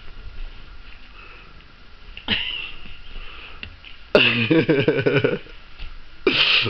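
A woman laughing: a short breathy gasp about two seconds in, a longer loud laugh a little past halfway, and a sharp breathy burst near the end.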